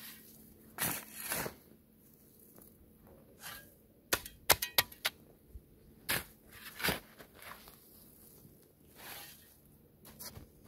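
Spade scraping into earth and tossing soil and gravel, in irregular strokes, with a quick cluster of sharp clicks about halfway through, the loudest sound here.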